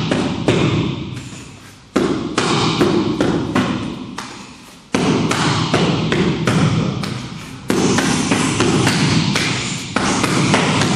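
Punches and hand strikes smacking leather focus mitts in a rapid, uneven series of sharp hits, several a second, with a short echo after each.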